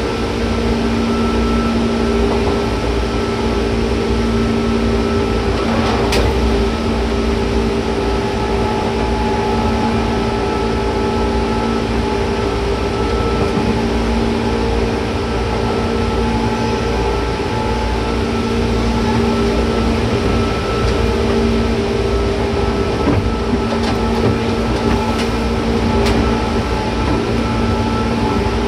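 JR 201 series chopper-controlled electric train running at a steady speed, heard from inside the car: a constant rumble of wheels on rail with a steady hum of several tones from the running gear. There is a brief sharp click about six seconds in and a few more near the end.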